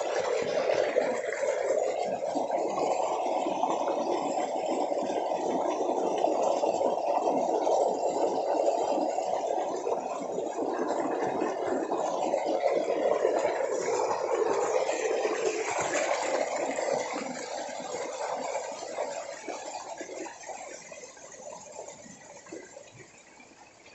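Water cascading down over stones in a steady, splashing rush that fades away over the last several seconds.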